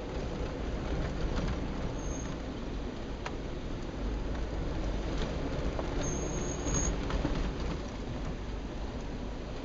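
Off-road SUV driving slowly on a rough gravel track, heard from inside the cab: a steady engine and tyre rumble with gravel crunching and a few small ticks from stones. There are two brief high squeaks, about two seconds in and again around six seconds.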